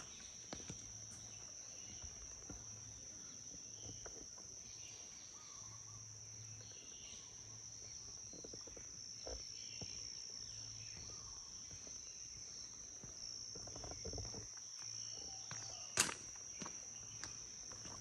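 A steady high-pitched insect drone, with scattered footsteps on a trail and one sharp click about sixteen seconds in.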